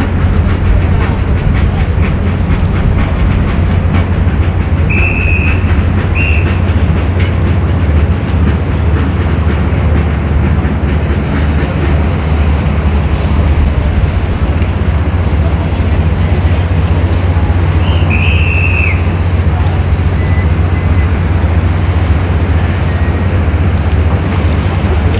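Steady low drone of a boat engine with a fast rattling throb, heard from on board over choppy water. A few short high whistle tones sound over it, twice about five seconds in and again a little past the middle.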